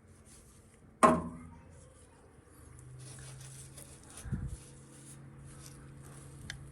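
A sharp knock that rings briefly about a second in, followed by light handling and rubbing noises, a dull thump, and a low steady hum.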